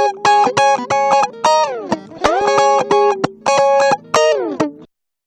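Music: a plucked-string phrase, guitar-like, of quick notes with several slides in pitch, cutting off suddenly near the end.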